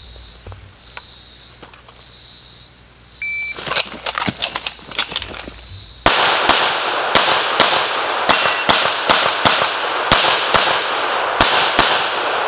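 Insects buzzing, then a shot timer's short beep about three seconds in and running footsteps. From about six seconds in comes rapid 9mm pistol fire from a Sig Sauer P320 Legion, a quick string of many shots that ends near the close.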